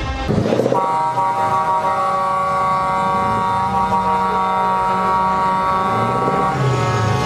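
Truck air horns sounding a long, steady chord of several tones for about six seconds; near the end the higher tones cut off and a lower tone carries on.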